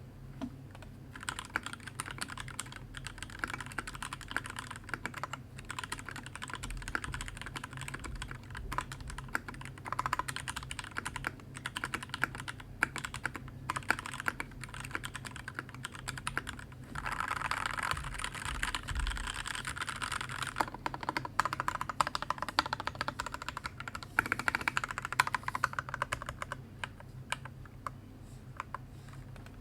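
Typing on a custom 60% mechanical keyboard with Alpaca linear switches and Keyreative keycaps: a steady stream of irregular key clacks, with a faster, denser flurry about two-thirds of the way through.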